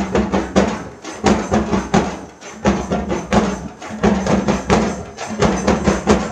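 Drums of a street procession band beating a fast, steady rhythm, several strikes a second.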